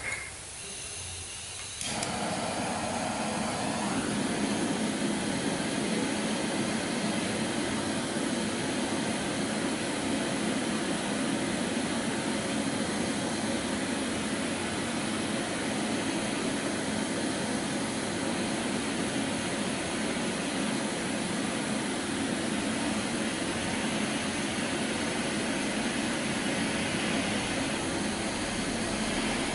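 Handheld gas-canister torch lit with a click about two seconds in, then burning steadily with an even, rushing hiss as its flame heats a Cerakote-coated exhaust in a heat-resistance test.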